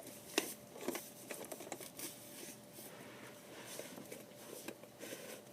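Homemade squishy vending machine having its knob turned: a handful of light clicks and knocks in the first two seconds, then softer scattered ticks.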